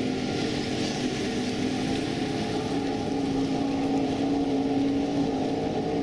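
Offshore racing powerboat running at speed, its engines giving a steady, even drone.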